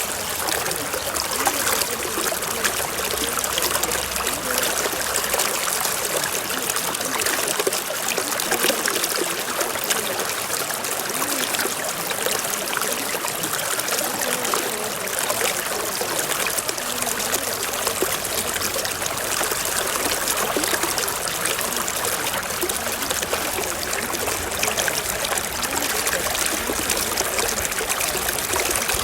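Steady running water, trickling and splashing without a break.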